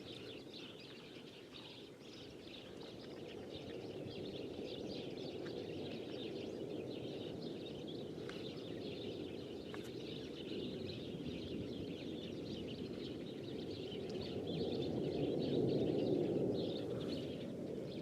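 Distant jet aircraft, a low rumble that slowly swells, is loudest about three-quarters of the way through, then eases off. Birds chirp over it.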